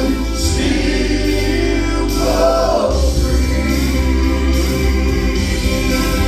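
Southern gospel group singing in harmony over band accompaniment with a strong bass line.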